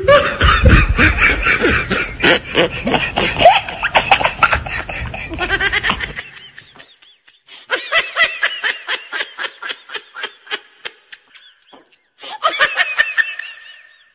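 Laughing in quick repeated 'ha-ha' bursts. For the first six seconds it sits over outdoor noise. After a short pause it comes back clean and without background, fades out, and returns once more in a short burst near the end.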